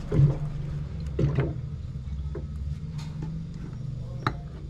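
Water running from a water dispenser's tap into a plastic bottle over a low steady hum, with a few sharp clicks and knocks of the bottle and tap being handled, the loudest about four seconds in.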